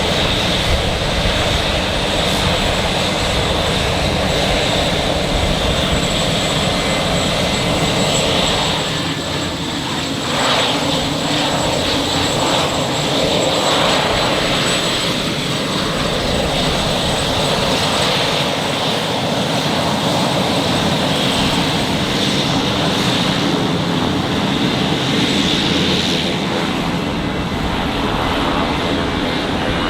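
Aircraft engines running steadily: first a Pilatus PC-12 NG single-engine turboprop, then, after a short dip about nine seconds in, the twin turbofans of an Embraer Legacy 500 business jet. A thin, steady high whine sits over the roar.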